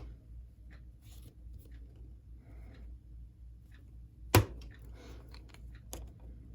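Small handling noises from working a model train motor's back plate into place with a screwdriver: faint scrapes and ticks, with one sharp click about four seconds in and a lighter one near the end.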